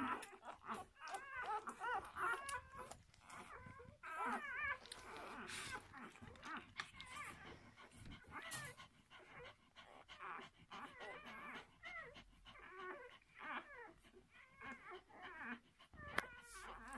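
Six-day-old puppies squeaking and whimpering as they nurse: a continual run of short, wavering high-pitched cries.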